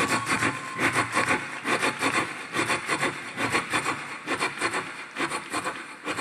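Mouth-made imitation of a steam train chugging into a cupped microphone: rhythmic chuffs about five a second, easing off toward the end. An imitated train whistle trails off just after the start.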